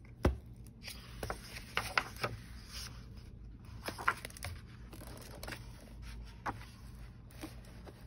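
Pages of a hardcover book being turned and handled: paper rustling with scattered soft taps and clicks, one firmer knock just after the start.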